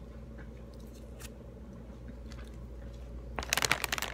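Scattered faint clicks of fingers peeling a pomelo segment, then a loud burst of crackling lasting well under a second near the end.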